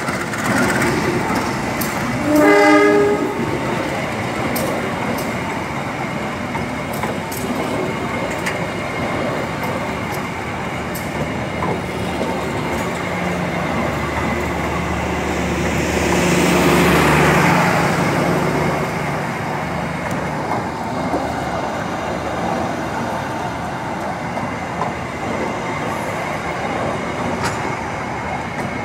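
A short train-horn blast about two and a half seconds in, then the passenger coaches of a diesel-hauled train rolling slowly past, with wheel clicks over track under repair. A low hum swells and fades around the middle as one car goes by.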